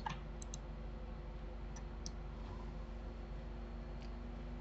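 A handful of faint, scattered clicks of computer mouse buttons over a steady low hum.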